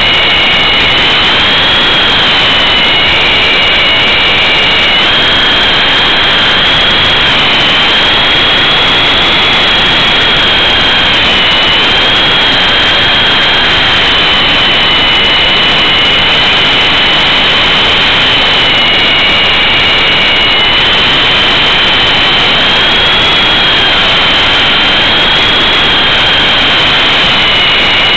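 Close-up whine of an E-sky Big Lama coaxial RC helicopter's electric motors, wavering up and down in pitch as the throttle changes, over a loud, steady rush of rotor wash on the onboard microphone.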